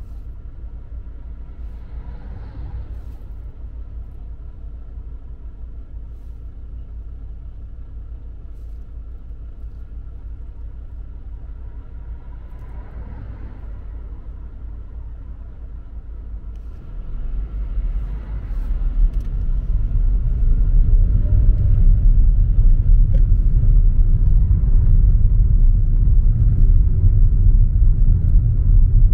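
Car heard from inside the cabin: a steady low idle rumble while standing, then the car pulls away just past halfway and the low engine and road rumble grows louder and stays up while driving.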